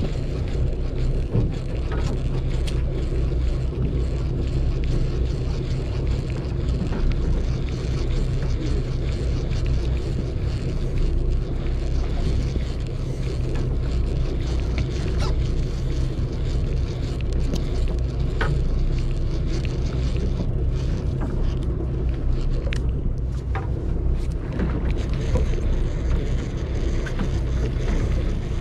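Fishing boat's engine running steadily, a low hum, with a few faint clicks now and then.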